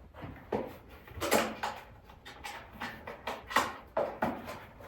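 Hands handling unboxed accessories and their packaging: an irregular run of sharp clicks, taps and rustles.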